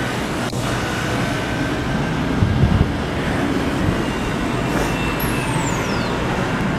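Alstom Citadis X05 tram of Paris line T9 pulling away from the platform: a steady low running hum under city traffic, with a high electric whine that falls in pitch about five seconds in.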